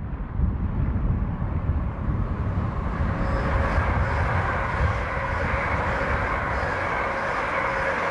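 London Northwestern Railway Class 350 Desiro electric multiple unit passing close alongside the platform. Its wheels and rushing air build up about three seconds in and hold steady as the carriages go by, over a low rumble of wind on the microphone.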